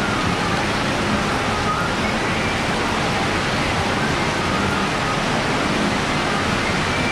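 Heavy rain pouring down steadily, a dense even hiss that does not let up.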